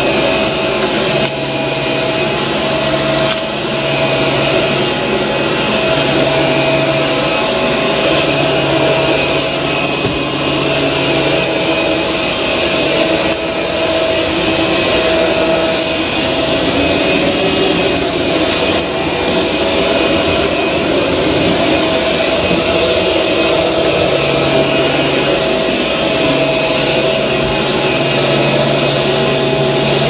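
Shark Navigator upright vacuum running steadily as it is pushed over a dusty concrete floor: a constant suction rush with a steady motor whine and a low hum that comes and goes.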